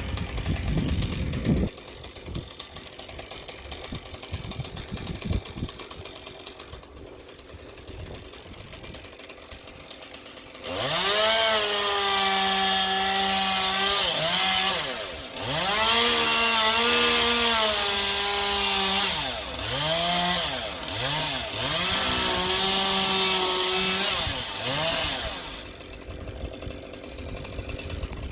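Two-stroke chainsaw held at high revs for about fifteen seconds from a third of the way in, the throttle eased off and squeezed back up several times, as in cutting through wood. Before and after this stretch there is only a low rumble with a few knocks.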